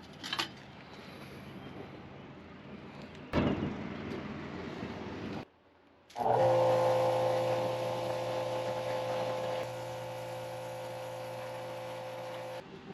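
A low background rush with a single thump about three seconds in, then, after a short cut, a motor running steadily with an even, unchanging pitch.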